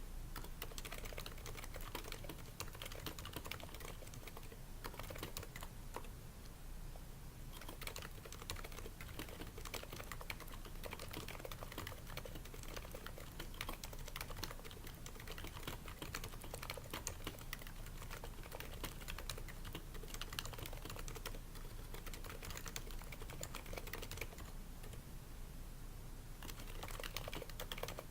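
Continuous typing on a Happy Hacking Keyboard Professional 2 with Topre switches damped by o-rings, lubed slider rails and shelf liner in the case: a dense, irregular run of keystrokes that thins out briefly twice, about six seconds in and again about twenty-five seconds in.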